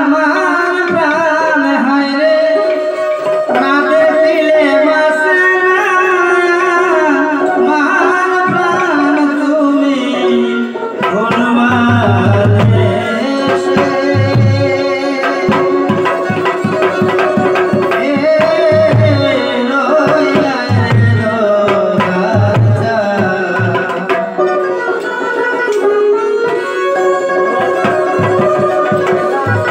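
Violin playing a melody with vibrato. About eleven seconds in, a hand drum joins with a steady rhythmic beat under it.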